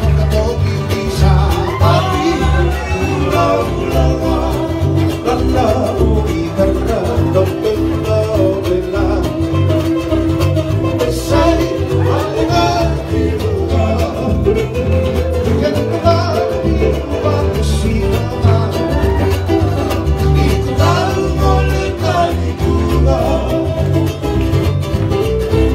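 Live band music: electric guitar and bass guitar playing a steady, even rhythm, with a voice singing over them at times.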